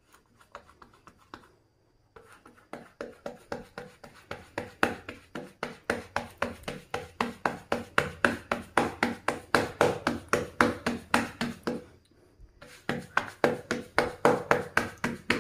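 Fingers patting rice-flour dough flat to shape an akki rotti: quick, even pats, about four or five a second, with a few softer taps first and a short break about twelve seconds in.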